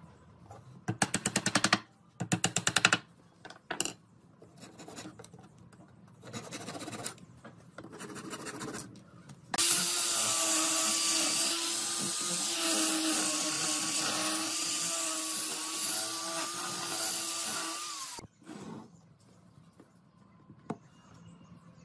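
An angle grinder fitted with a sanding disc runs on pine for about eight seconds, a steady hiss with a whine that wavers a little, then cuts off. Before it come a few short, rapid rattling bursts from a power tool.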